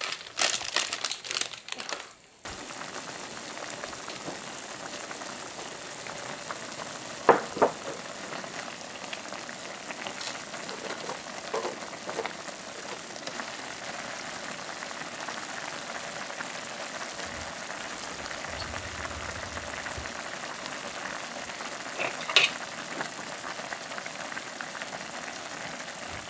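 Pot of ramen broth at a rolling boil, bubbling steadily. Rustling in the first two seconds and a few sharp knocks, the loudest about seven seconds in.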